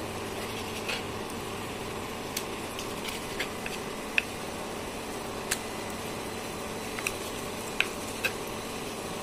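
Knife clicking against a wooden cutting board while skinning fish fillets: scattered sharp ticks every second or so over a steady background hum.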